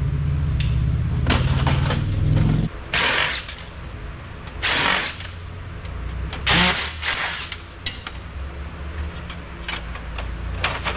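A cordless drill/driver runs steadily and stops about three seconds in. Then come three short, loud scraping clatters and a scatter of clicks as parts are worked loose from a large office copier.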